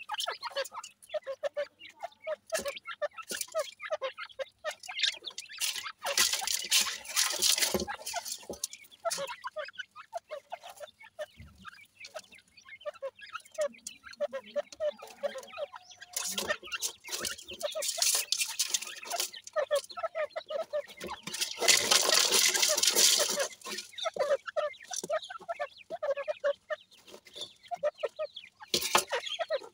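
Francolin hen and chicks giving many short, soft clucking and peeping calls, broken by several bursts of rustling gravel as the birds scratch and peck in the tub, the loudest about two-thirds of the way through.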